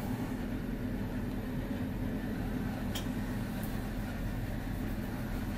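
Steady low background hum of room tone, with one faint tick about three seconds in.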